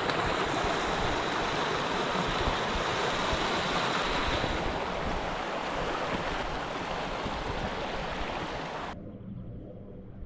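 Fast-flowing river water rushing over rapids, a steady even rush that cuts off suddenly about nine seconds in, leaving much quieter background.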